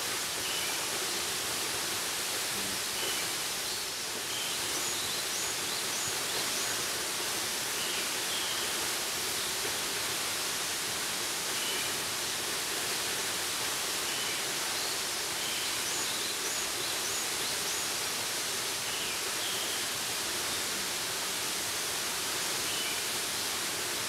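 Tall waterfall: a steady, even rush of falling water with no change in level. A few faint high bird chirps sound now and then above it.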